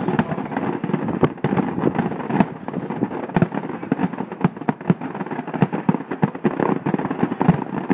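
Fireworks going off in a rapid, unbroken barrage of bangs and crackling, many reports a second.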